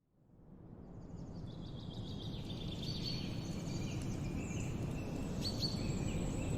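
Outdoor ambience fading in from silence over the first two seconds or so: a steady low background rumble with birds chirping over it in short high calls and quick gliding notes.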